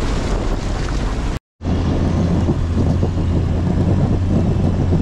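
Lifted Jeep driving off-road, its engine a steady low drone under heavy wind noise on a camera mounted outside the vehicle. The sound drops out for a moment about one and a half seconds in, and after that the engine drone is stronger.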